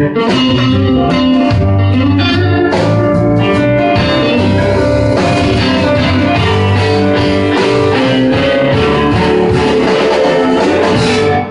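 Live blues band playing an instrumental passage: guitar leading over a bass line.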